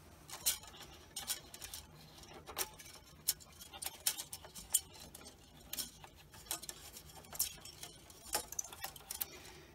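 Faint, irregular light clicks and taps as film and fingers handle the body and guide rollers of a Magnasonic FS81 film scanner while 8mm film is threaded through it.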